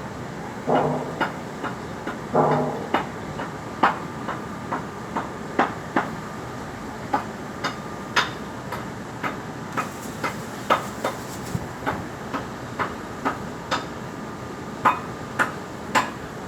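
Repeated hammer strikes, irregular, about one or two a second, each with a short ring, with two longer, louder knocks near the start.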